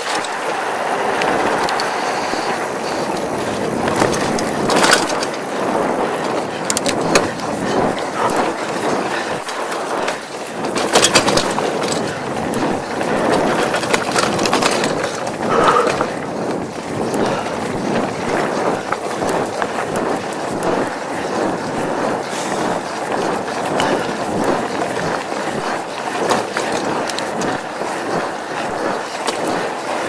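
Mountain bike (Mongoose Tyax) rolling fast over a sandy, bumpy dirt track: steady tyre crunch and the bike's rattle, heard close from a handlebar-mounted camera, with a few sharper knocks over bumps.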